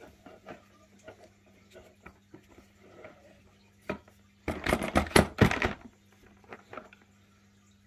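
Tools and accessories being handled in a hard plastic tool case: light clicks and taps, then a loud burst of rattling and knocking lasting about a second and a half, a little past halfway.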